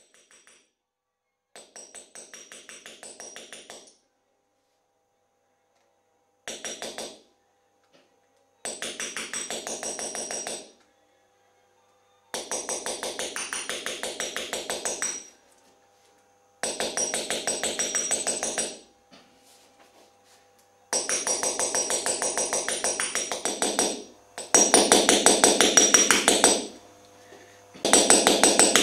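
Small hammer rapidly tapping a chasing punch on a 0.5 mm copper sheet set on resin, punching the design outline into the metal. The light, ringing metallic taps come in runs of one to four seconds with short pauses, and grow louder in the last few runs.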